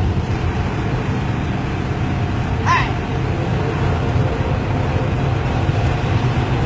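Bus diesel engine running through a loud aftermarket exhaust (a "knalpot ngorok"), a steady low drone. A brief high chirp sounds once near the middle.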